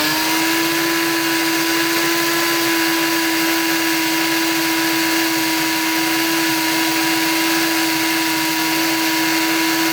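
Silvercrest electric blender/grinder motor running at full speed, grinding. It is a steady, high-pitched whine that holds one pitch throughout.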